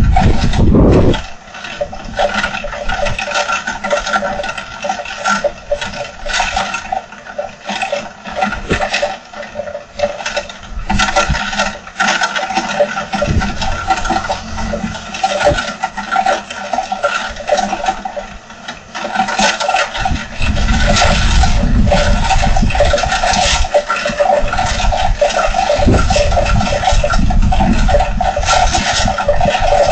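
Heavy rain pouring down with a dense patter of drops. About twenty seconds in, a low rumble of wind gusts joins it and the whole sound grows louder.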